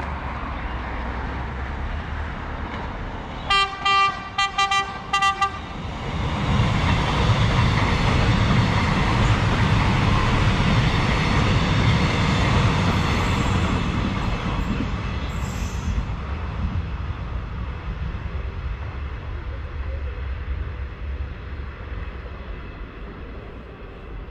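Suburban electric train sounds a string of about five short horn toots a few seconds in, then passes close by, its rumble and wheel noise swelling to the loudest point and slowly fading as it goes away.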